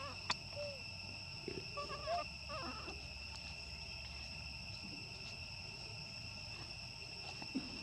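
Steady high insect drone of two held tones, with a few short squeaky calls from young macaques near the start and again around two seconds in. A single sharp click comes just after the start.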